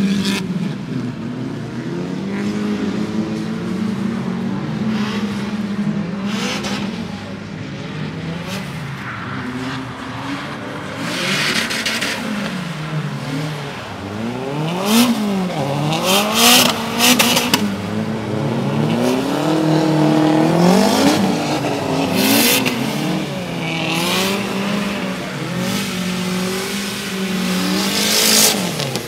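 Drift cars' engines revving up and down quickly as the cars slide past one after another, with short rushes of tyre noise on the wet track now and then.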